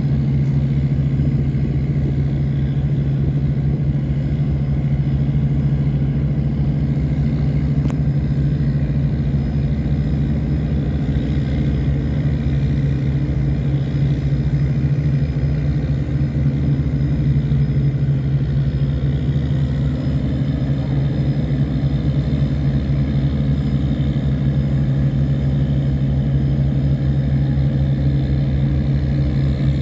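Tugboat engines running steadily under load while towing cargo barges upstream against the current: a loud, even, low drone that does not change.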